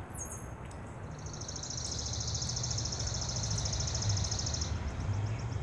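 A high, rapid trill of evenly spaced pulses, starting about a second in and lasting about three and a half seconds, over a steady low rumble.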